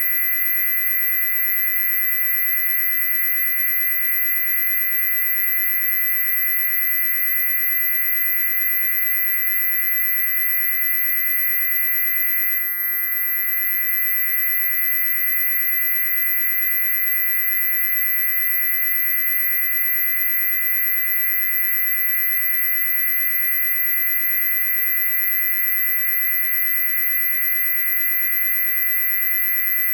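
Loud, unbroken high-pitched electronic tone: several steady pitches sounding together, the loudest a piercing very high whine, with only a slight momentary dip about thirteen seconds in.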